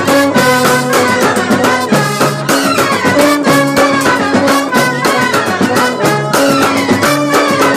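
Brass bandset playing a lively tune: trumpets and clarinets hold the melody over fast, busy beating on snare drums, a bass drum and a cymbal.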